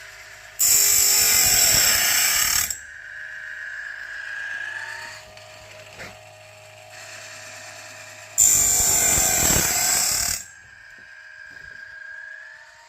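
Grindlux band-saw blade sharpener at work: the grinding wheel grinds the blade in two loud passes, each about two seconds long and some eight seconds apart. Between them comes the quieter running of the machine's feed mechanism, with a rising whine.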